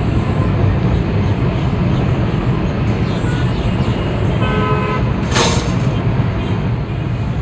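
A heavy engine running steadily with a deep rumble. About four and a half seconds in there is a short horn toot, followed by a brief sharp hiss or crack.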